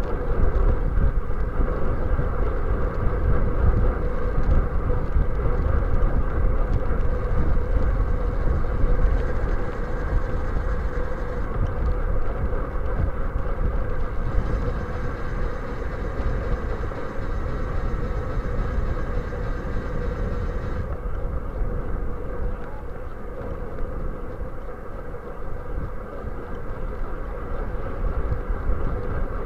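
Wind rushing over a bicycle-mounted camera's microphone, with steady road and tyre noise from a bike riding along.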